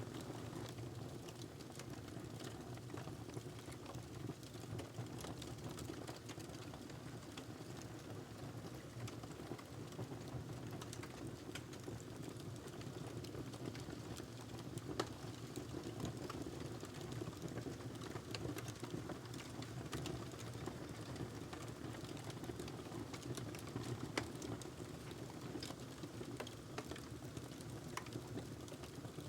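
Wood fire burning in a fireplace: steady crackling with scattered sharp pops over a constant low rumble of the flames.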